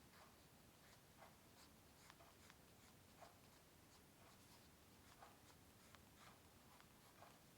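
Faint, irregular scratchy strokes of drawing on paper, about one or two short strokes a second.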